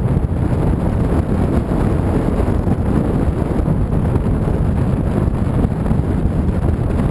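Wind buffeting the microphone of a motorcycle-mounted camera while riding, a steady rush over a low rumble of the motorcycle and road.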